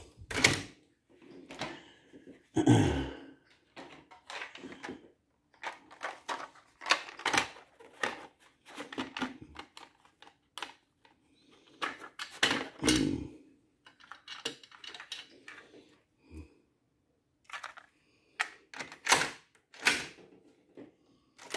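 Marantz Model 1810 cassette deck's piano-key transport buttons and cassette door clicking and clunking: keys pressed, the door opened, a cassette put in and the door pushed shut. A series of separate clicks and knocks with several heavier clunks among them.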